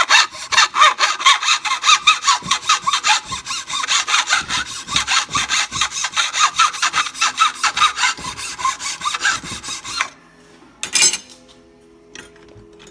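Cut edges of PVC conduit being smoothed by hand to remove burrs: fast back-and-forth rasping strokes, about five a second, which stop about ten seconds in, followed by one short burst of rubbing a second later.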